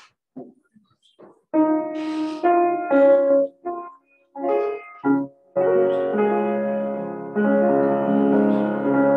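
Piano playing slow chords: a few separate chords with short gaps, then from about five and a half seconds in, held chords that fade slowly before the next is struck. A few faint short sounds come before the music starts.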